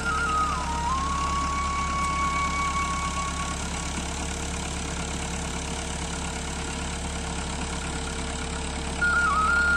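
Tractor's diesel engine running steadily as it levels a flooded paddy field. A flute-like melody plays over the first few seconds and starts again near the end.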